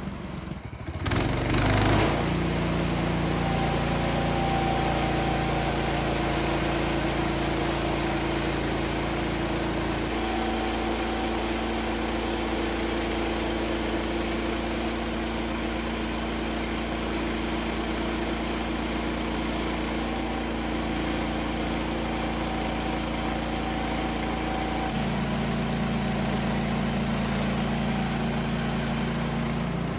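Portable bandsaw sawmill's small gasoline engine running steadily under load as the blade cuts along a red oak log. Its note changes slightly about ten seconds in and again near twenty-five seconds.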